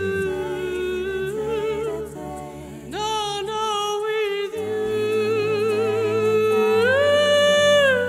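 A woman singing long, wordless held notes with vibrato in a slow ballad, moving to a higher note near the end, over a low sustained instrumental backing.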